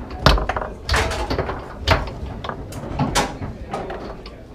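Foosball table in fast play: a run of sharp, irregular knocks and clacks as the ball is struck by the players' men and the rods slide and bang in their bearings. The loudest knocks come about a quarter second in, near two seconds in and just after three seconds.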